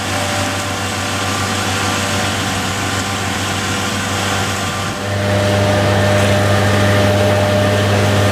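Engine of a tractor-mounted ice-blowing hail simulator running steadily. It gets louder about five seconds in.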